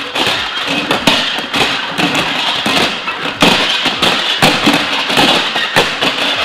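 Two upturned bowls being slid and shuffled around on a hard countertop: scraping with repeated knocks and clunks as they are pushed and set down.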